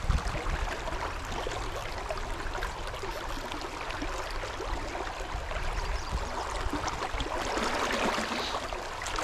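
Fast river current running over a rip: a steady rushing wash of water with no distinct events.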